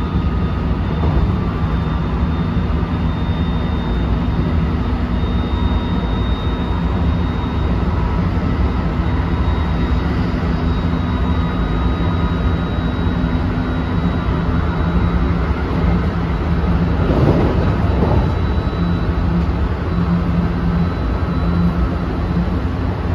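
JR West 223 series 2000-subseries electric motor car (MoHa 222, Toshiba IGBT VVVF inverter) running at speed, heard inside the car: a steady rumble of wheels on rail with a thin high whine over it, and a brief swell of louder noise about 17 seconds in.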